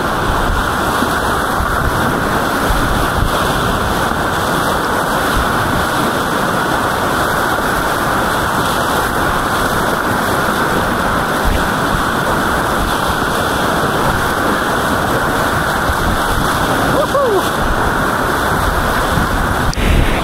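Whitewater rapids rushing and splashing loudly and steadily around a kayak running down a continuous, rocky river.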